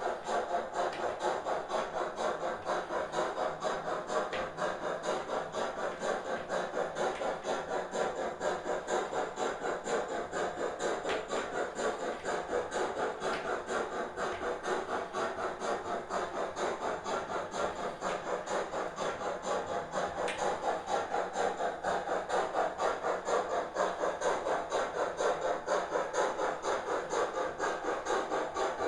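Model BR 80 steam tank locomotive running, with a steady rhythmic beat of about three pulses a second.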